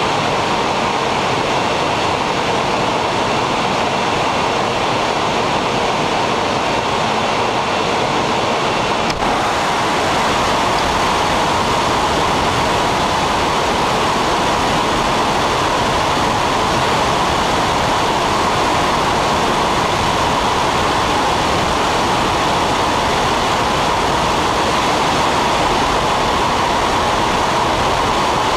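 Steady, unbroken noise of a military aircraft in flight, engine and airflow together, with a single faint click about nine seconds in.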